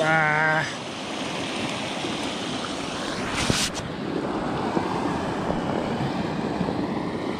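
Steady rush of a small mountain river running over rocks through a riffle, with a brief swish about three and a half seconds in.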